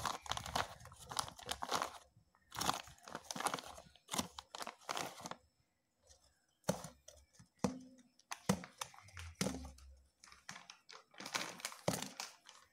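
A hand tossing and squeezing shredded raw cabbage with gram flour in a steel bowl: crisp rustling and crunching in bouts, with a short lull a little before the middle.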